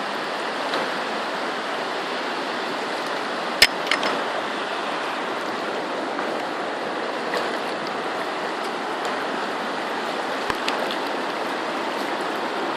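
Steady rush of river water pouring over a waterfall. A sharp click comes about three and a half seconds in, and a fainter one near ten seconds.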